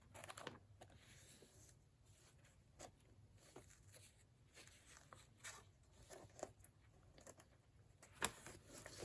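Faint rustling and light taps of pages being turned in a large old book, with a sharper tap near the end.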